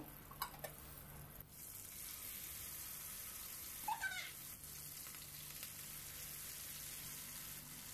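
Marinated chicken legs shallow-frying in butter and oil in a nonstick pan: a quiet, steady sizzle, with a few small clicks in the first second or so.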